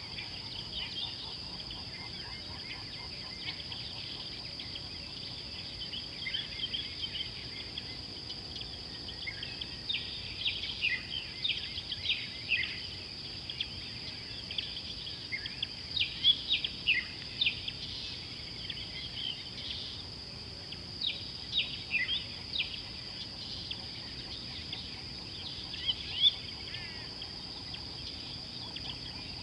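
A steady high-pitched insect drone with many short bird chirps and calls over it, thickest through the middle and again a little before the end.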